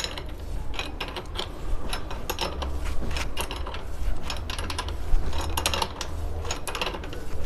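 Irregular metallic clicks and clinks of a spanner working a bottom bracket tool as a square-taper bottom bracket is screwed tight into a bicycle frame.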